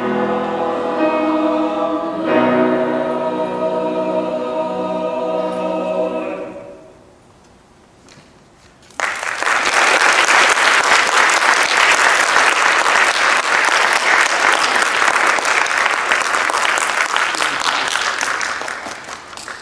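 Tenor-bass choir of middle-school boys' voices singing the final held chords of a piece, dying away about seven seconds in. After a couple of seconds of silence, the audience breaks into steady applause that fades near the end.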